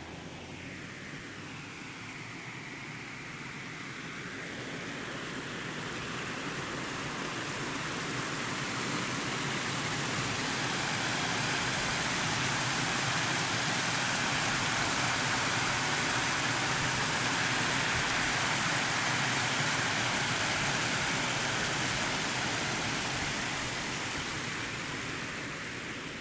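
A steady rushing noise that grows louder over about ten seconds, holds, then fades near the end, as if the recorder is passing a continuous source.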